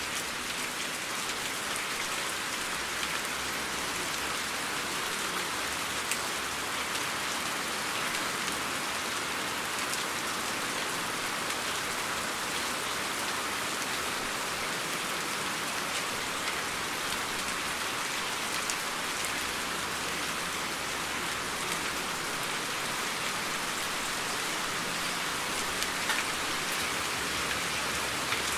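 Steady rain falling: an even, unbroken hiss with scattered sharper ticks of individual drops.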